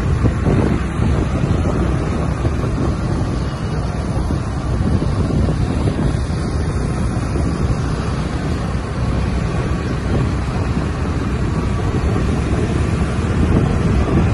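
Steady wind rumble on the microphone of a camera riding through traffic, with the vehicle's running and road noise underneath.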